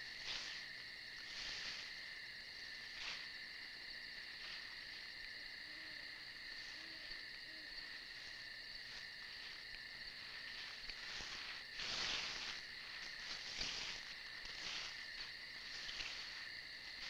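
Steady high-pitched chorus of night insects such as crickets, with occasional rustles in dry leaves on the ground, loudest twice in the second half.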